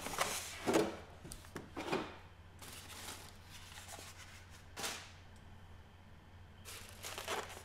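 Cardboard box and styrofoam packing being handled: a few short scrapes and light knocks, with quiet between.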